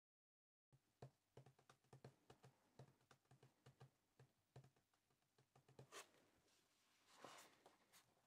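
Near silence: faint small clicks and taps, then a couple of soft rustles.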